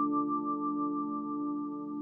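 Soft background music: a sustained keyboard chord held and slowly fading.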